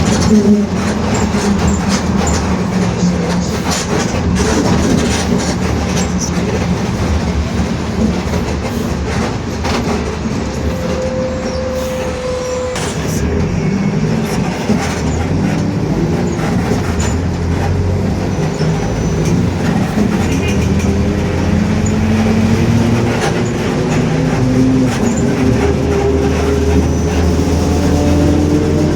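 Mercedes-Benz OF-1721 city bus under way: the diesel engine drones while the body rattles, and the differential growls ('roncando'). Near the end the engine note climbs steadily as the bus gathers speed.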